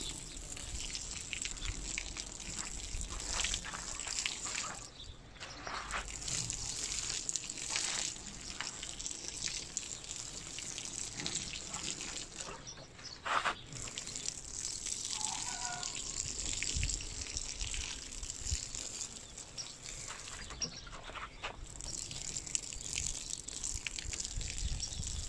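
Water pouring and splashing steadily onto tomato plants and the soil around them as they are watered.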